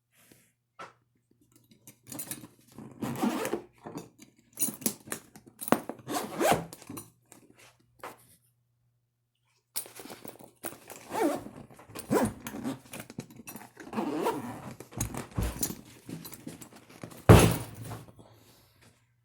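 Zippers on a Veto MB-MCT tool bag being pulled open and shut in repeated rasping strokes, in two spells with a pause between. A sharp thump near the end is the loudest sound.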